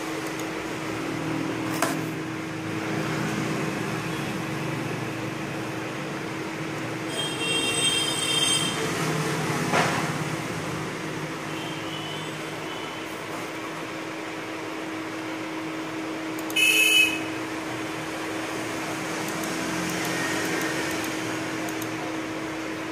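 Steady machine hum with a constant low tone. Two faint clicks. A high, pitched tone lasts about a second and a half around a third of the way in. A short, loud high beep about three-quarters of the way in is the loudest sound.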